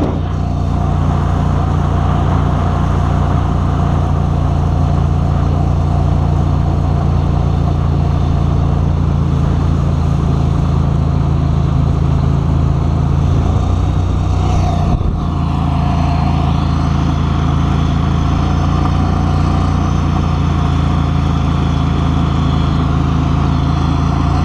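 Mudbuddy Sport V 44 hp surface-drive mud motor running steadily at speed under a boat, with the rush of water and wake beneath it. There is a brief change in the engine note about midway.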